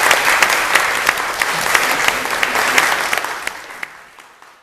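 Audience applauding: a dense patter of hand claps that fades out over the last second or so.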